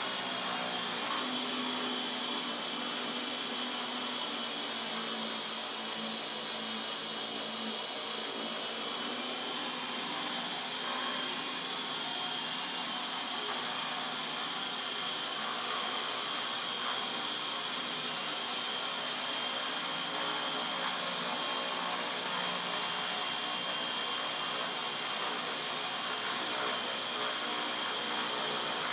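Align T-Rex 450 SE electric RC helicopter hovering: a steady high-pitched whine of the electric motor and gears over the rush of the rotor blades. The whine sags slightly in pitch a few seconds in and comes back up around ten seconds in.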